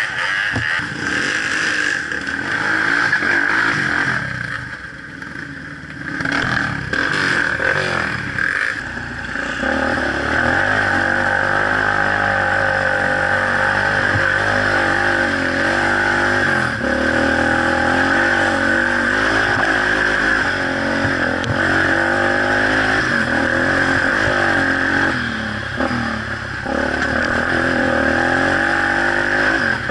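Off-road vehicle engine heard onboard while riding through water and mud: uneven and broken for the first several seconds, then running steadily from about ten seconds in, its pitch rising and falling as the throttle changes.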